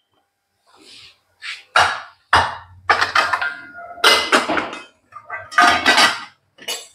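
Stainless-steel kitchen bowls and containers clinking and clattering as they are handled and set down on a stone counter: a string of sharp knocks, some with a brief metallic ring.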